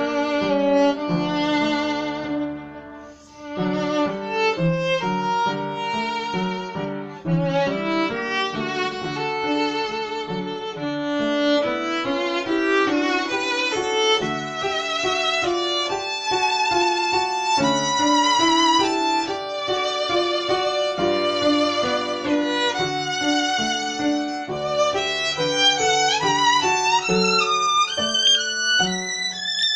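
Violin playing a melody with vibrato over an upright piano accompaniment, live in a room, with a brief break in the phrase about three seconds in.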